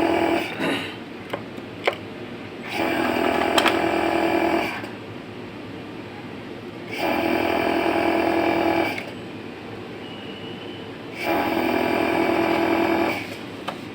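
Sewing machine servo motor, run from a G60 control box, whining in bursts of about two seconds, three times, roughly every four seconds, with a low hum left in between.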